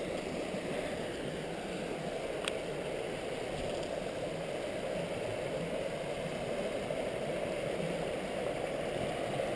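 River rapids rushing steadily, with one brief click about two and a half seconds in.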